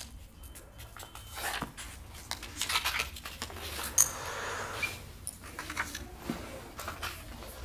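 Paper and books being handled: scattered rustles and small knocks, with a sharp click about four seconds in and a longer soft rustle after it.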